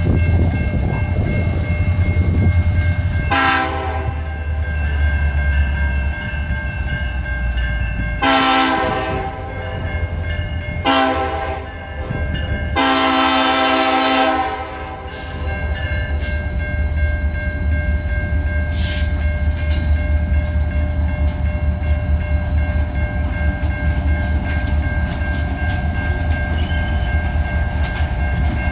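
Nathan K5LLA five-chime air horn on an EMD SD70M-2 diesel locomotive sounding four blasts, short, long, short, long, starting a few seconds in. Under and after the horn, a long freight train rumbles past with steady wheel clatter on the rails.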